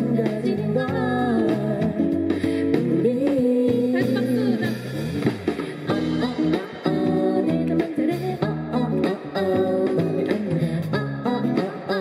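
Live song: a woman singing into a microphone over acoustic guitar.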